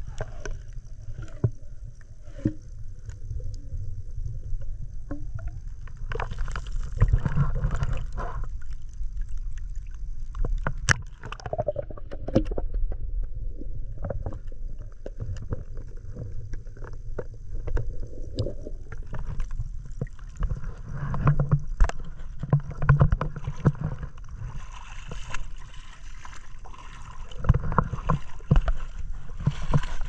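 Muffled sound of shallow sea water around a camera held just under the surface: a steady low rumble and sloshing, broken by scattered sharp clicks and knocks.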